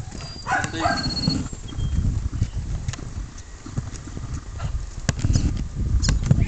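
Footsteps on loose dirt, over a steady low rumble.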